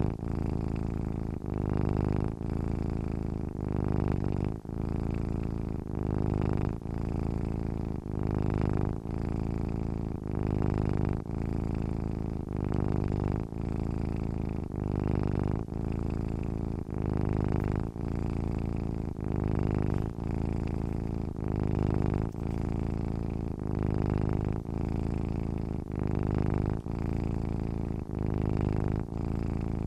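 A sleeping domestic cat purring steadily, the purr swelling and easing in an even rhythm of about one cycle a second as it breathes in and out.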